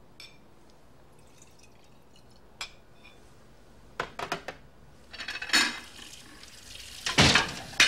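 Liquor poured from a bottle into a small glass, with sharp clinks of glass on glass. There is a short, louder noise near the end.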